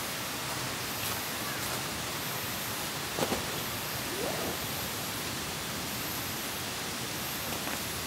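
Steady hiss of falling rain, with a short knock about three seconds in as a bag is set down on gravel.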